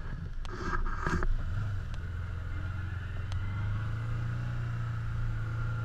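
Can-Am Commander side-by-side's engine running steadily. A couple of brief noises come over it near the start.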